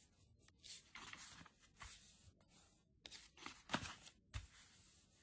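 Faint rustling and swishing of a paper catalogue's pages being turned by hand, with a few light flicks of paper; the loudest swish comes about three and a half seconds in.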